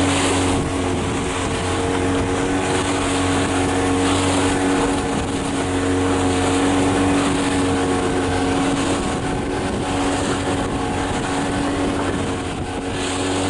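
Motorboat engine running steadily at cruising speed with a constant, unchanging drone.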